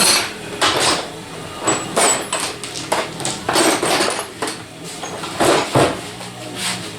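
Irregular metallic clanks and taps, roughly one or two a second, as from hand work on sheet metal.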